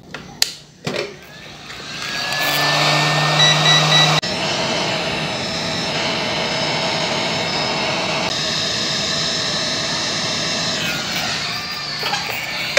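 Hot-air rework station blowing a steady rush of air onto a laptop motherboard to solder on a replacement chip. The air builds up about a second or two in and drops off near the end, with a few short clicks before it starts.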